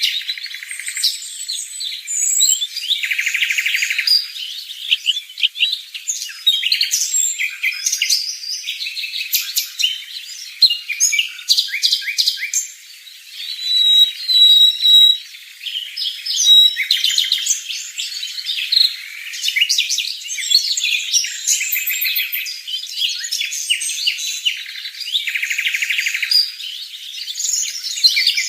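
Small birds chirping and twittering without pause, with several bouts of rapid, buzzy repeated calls of the kind birds make when feeding young.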